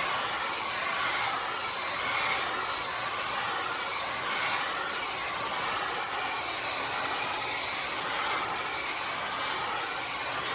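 Handheld hair dryer blowing steadily, its hot air aimed at a rate-of-rise heat detector to set it off.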